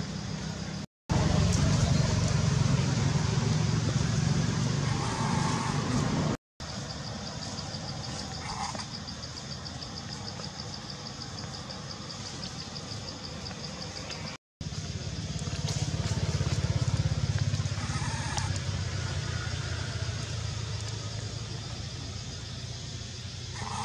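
A steady low rumble, broken by three brief silent gaps, with a thin steady high buzz through the middle stretch and a few faint short blips.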